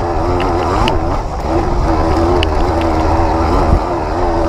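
Off-road motorcycle engine running as the bike is ridden up a rough track, its pitch rising and falling with the throttle, a brief dip about a second in. Low wind rumble on the helmet-mounted microphone and a few sharp ticks run under it.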